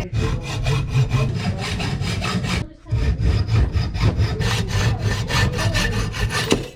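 A hacksaw cutting through aluminium tube in fast, even back-and-forth strokes, with a brief pause about three seconds in.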